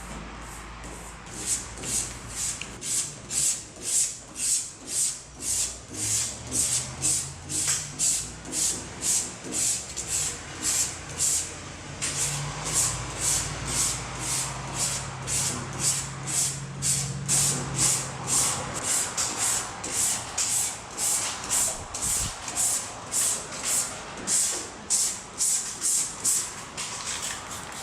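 Rhythmic back-and-forth hand rubbing on a round baler's painted sheet metal, about two hissy strokes a second, as paint overspray is worked off the surface. A low engine drone runs underneath through the middle stretch.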